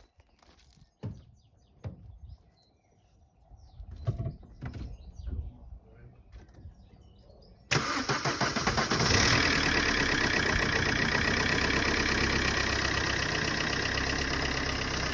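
Vauxhall Combo's 1.3 CDTi four-cylinder diesel engine starting about eight seconds in, after a few quiet clicks and knocks, then running steadily at idle. It starts without a rattle on its newly replaced timing chain.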